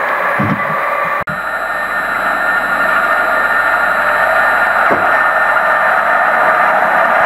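Loud, steady rushing noise with a momentary dropout about a second in, where the recording is cut.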